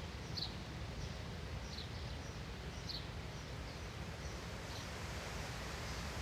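Outdoor ambience: a steady background hiss with faint short, high bird chirps about once a second.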